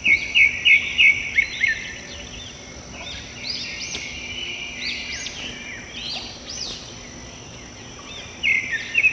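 Wild birds singing: a quick run of loud chirps in the first two seconds, then scattered rising-and-falling notes, over a steady high-pitched buzz.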